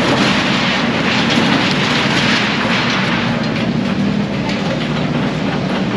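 Demolition noise: continuous clattering and crashing of debris over a steady engine hum.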